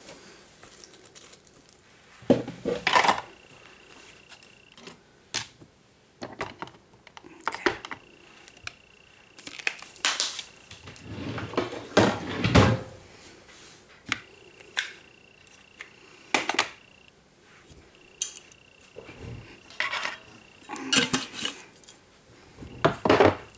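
Small hard objects, such as nail polish bottles and nail-art tools, handled on a tabletop: irregular clinks, taps and knocks, some sharp and loud, with short pauses between them.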